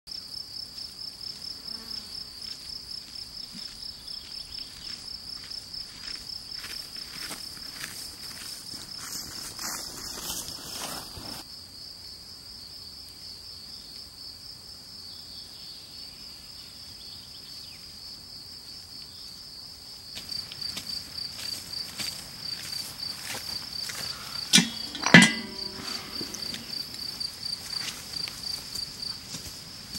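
Meadow insects chirping in a steady, high-pitched, evenly pulsing trill. There is some rustling about ten seconds in, and two sharp knocks half a second apart about five seconds before the end.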